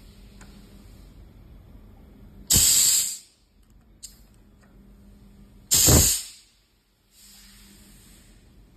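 Two short, loud bursts of compressed-air hiss about three seconds apart: a pneumatic chuck being actuated by air. Under them runs a faint steady hum, with a faint click now and then.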